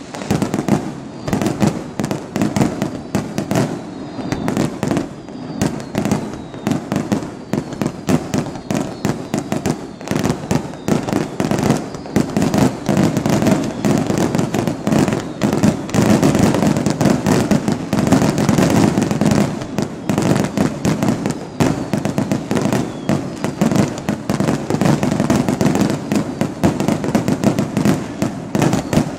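Aerial firework shells bursting in a rapid, unbroken barrage of bangs overlaid with dense crackling.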